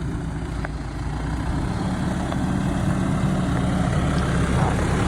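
A 4x4's engine running steadily, growing gradually louder, with a few faint clicks.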